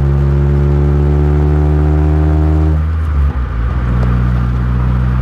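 Honda CR-Z Mugen RZ's four-cylinder engine pulling steadily, heard from inside the cabin, its note rising slightly. About three seconds in, the engine note breaks off and dips for about a second, then settles back to a steady drone.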